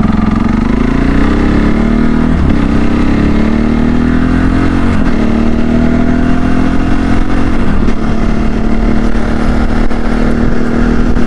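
CSC RX4 motorcycle engine accelerating through the gears. The pitch rises and drops back at three upshifts, about two and a half, five and eight seconds in, then the engine runs steadily at cruising speed.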